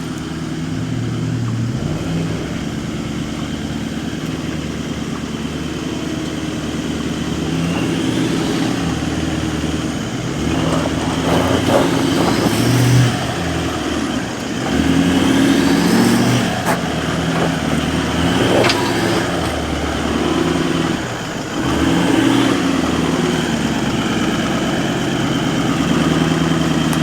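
Four-wheel-drive engine revving up and easing off again and again as the vehicle crawls over rocks, with a few sharp knocks around the middle.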